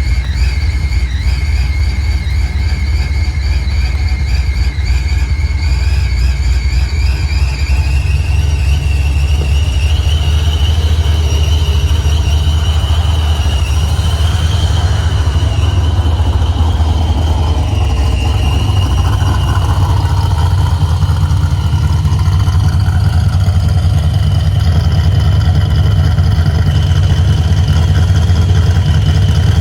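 Car engine idling steadily through a warm-up after an oil change, with a deep rumble under a thin high whine. The whine wavers at first, rises in pitch about eight to twelve seconds in, then holds steady.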